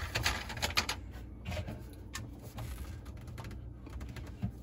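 Irregular light clicks and taps of hands handling plastic: a plastic bucket being set in place and the black plastic sink drain trap being gripped and worked loose. The clicks come thick in the first second, then scattered.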